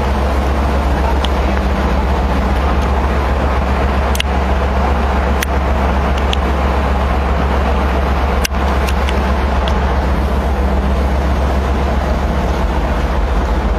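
Steady loud rumble of wind across the microphone on the open deck of a moving ship, mixed with the low drone of the ship's engine, with a few sharp clicks.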